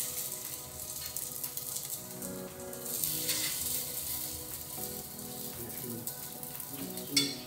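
Salmon cakes sizzling in avocado oil on a hot flat-top griddle: a steady frying hiss, the sound of the cakes searing as they should.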